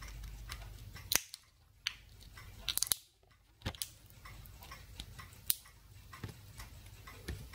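Small plastic button housing being pried apart at its seam: scattered faint clicks and cracks of plastic, with a quick cluster of them about three seconds in.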